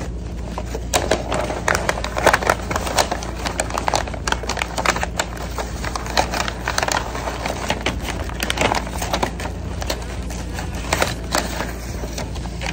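Brown kraft-paper bouquet wrapping crinkling and rustling as hands unfold it: a run of sharp crackles that comes and goes.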